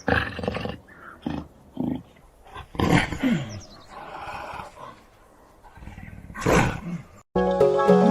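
Recorded wild animal calls: a series of separate loud cries, one falling in pitch about three seconds in. Near the end they give way to cheerful background music.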